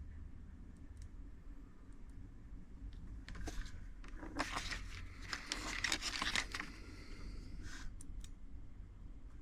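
Crinkling, rustling handling noise for about three seconds in the middle, with a few light clicks before and after, over a steady low hum.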